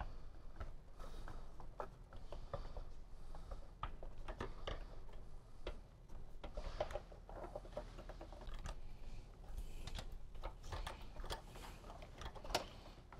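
Faint, scattered small clicks and light rattling of hands routing rubber fuel tank vent hoses and wiring on a motorcycle, with one louder click near the end.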